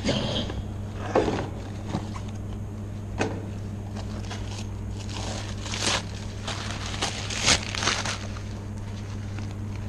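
Handling noise close to the microphone: scattered scrapes and crackling rustles, the sharpest about a second in and again around six and seven and a half seconds in, over a steady low hum.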